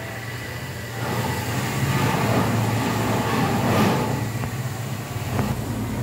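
A low, steady rumble that builds about a second in, is loudest around the middle and eases off near the end, with no parrot calls over it.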